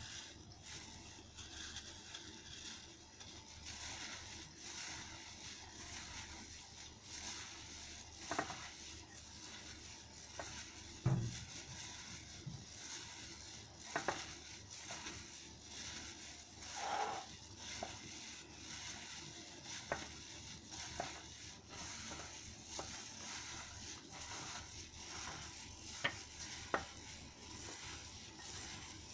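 Pizza topping of chopped vegetables and chicken tikka being mixed by a hand in a plastic glove in a glass bowl: faint steady rustling and squishing, with occasional light knocks.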